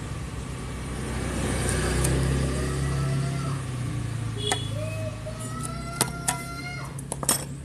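A motor vehicle engine rumbling, swelling about two seconds in and then easing off. Over the second half come several sharp metallic clicks as snap-ring pliers work a steel snap ring onto the scooter's kick-starter shaft.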